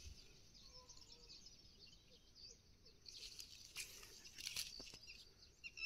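Near silence: faint outdoor ambience, a high hiss with a few faint chirps and soft clicks.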